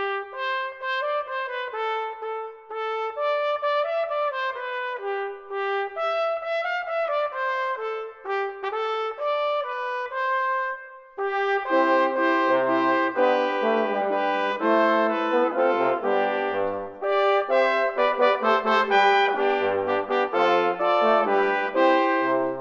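Instrumental background music: a single melody line of separate notes at first, then fuller harmony with lower parts joining about halfway through.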